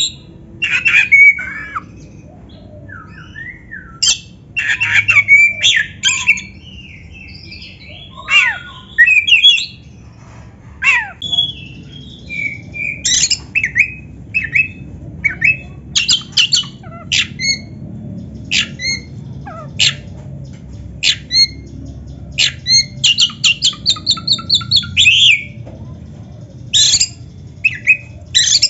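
Oriental magpie-robin (kacer) singing: a varied run of sharp whistles, chips and harsh squawking notes in quick bursts, with a fast run of repeated notes about three-quarters of the way through.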